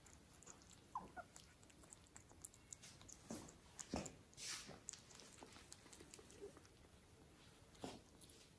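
Kittens nosing, pawing and nibbling at a felt gift basket and shifting on the floor: faint scattered taps, scuffs and rustles, with a few louder ones now and then.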